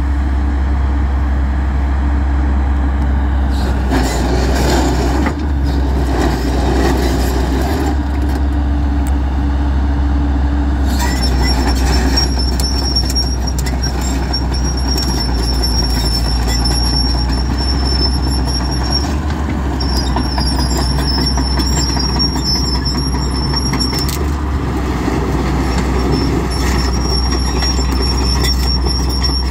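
Kobelco SK210LC-9 excavator's diesel engine running loudly and steadily under hydraulic load as the machine is operated. From about eleven seconds in, a thin high squeal comes and goes several times.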